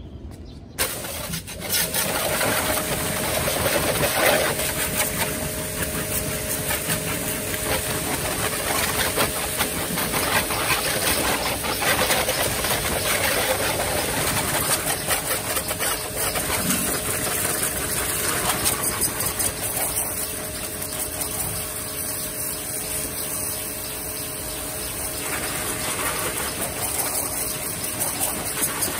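Small Yamasu electric pressure washer running: its pump motor hums steadily under the hiss of the high-pressure water jet spraying onto a motorcycle. It comes on abruptly about a second in and stays steady.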